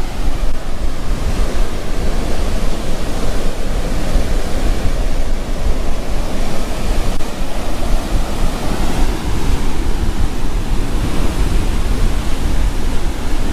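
Rough Gulf of Mexico surf breaking and washing on the beach in strong storm wind, with wind buffeting the microphone as a steady low rumble.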